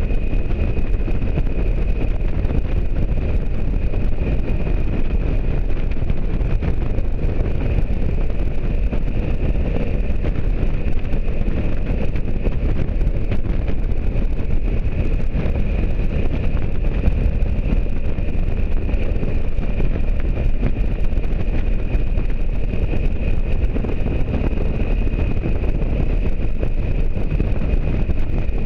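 Motorcycle riding noise at steady cruising speed: wind rushing over the microphone mixed with the bike's engine and road noise, an even low rumble with a faint steady high whine above it.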